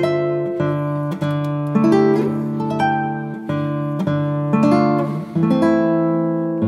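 Background music of a plucked guitar, a slow run of single notes and chords.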